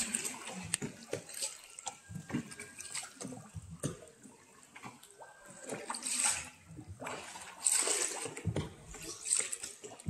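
Water splashing and gurgling around a small boat in irregular bursts, the biggest about six, eight and nine seconds in.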